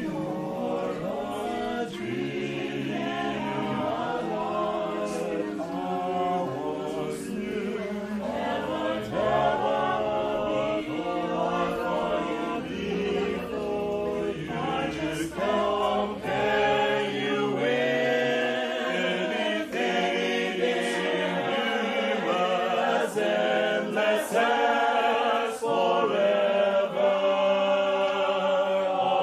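Mixed choir of men and women singing a slow love song in harmony, with electric keyboard accompaniment in the first half; the keyboard drops out about halfway through and the voices go on unaccompanied.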